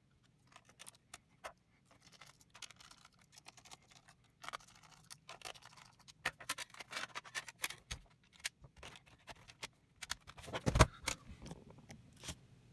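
Faint, scattered clicks and taps of a laptop's cooling fan and plastic casing being handled as the fan is plugged back in and fitted into the base, with a louder clatter near the end.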